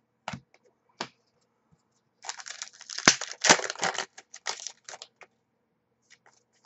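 Foil trading-card pack wrapper crinkling in the hands for about three seconds, after a couple of light taps of cards in the first second.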